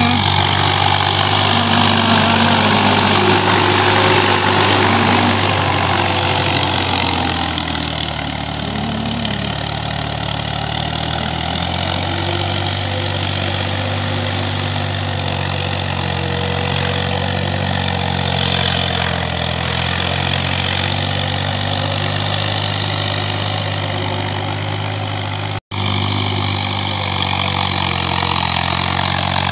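Diesel tractor engine running steadily under load as it pulls a tiller through flooded paddy mud. The sound cuts out for an instant near the end.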